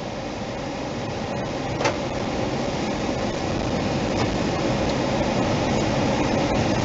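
Road and engine noise heard inside a moving car, growing steadily louder as the car gathers speed. A single sharp click sounds about two seconds in.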